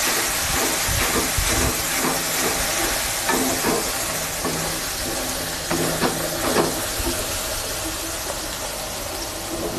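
Onion paste and ground spices sizzling in hot oil in a pan, a steady frying hiss, with a spatula scraping and knocking against the pan at intervals as the masala is stirred.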